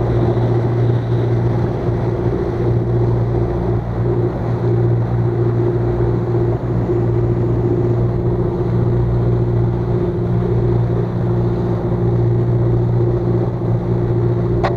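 Arkos 517 Open motorboat's engine running steadily while the boat cruises, a constant low drone with an even hiss of noise over it.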